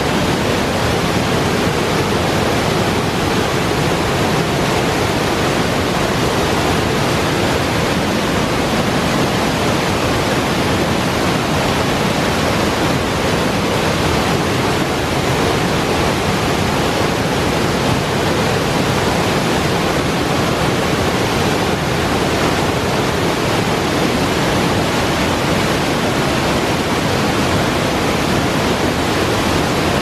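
Cascading waterfall: a mountain brook in high flow rushing down over boulders in a steady, loud roar of falling water that doesn't change.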